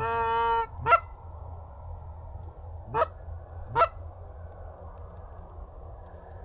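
Goose honking: one long even honk right at the start, then three short upward-swooping honks about a second in, at three seconds and just before four seconds, over steady wind noise.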